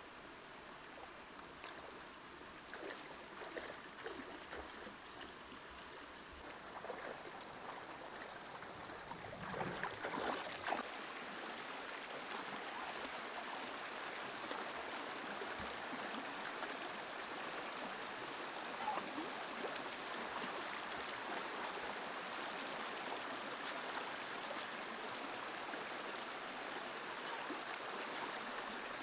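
Light rustling and small splashes of leafy stems being handled at the water's edge. About ten seconds in, the steady rush of a shallow stream running over rocks takes over, with a few splashes of someone wading through it.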